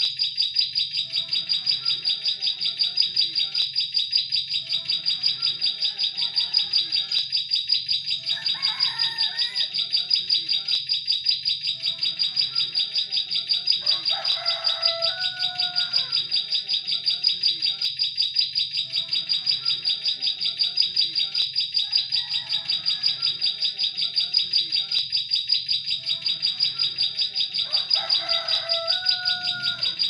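Ciblek sawah (prinia) lure call: a continuous high-pitched trill of rapid ticks, unbroken throughout, with fainter, lower short chirps every few seconds.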